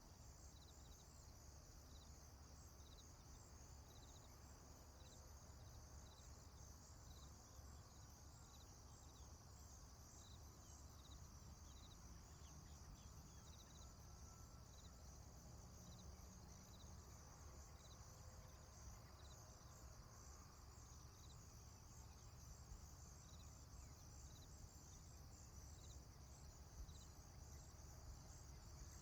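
Faint chorus of crickets chirping steadily, with short chirps repeating about once a second over a continuous high trill, and a low rumble beneath.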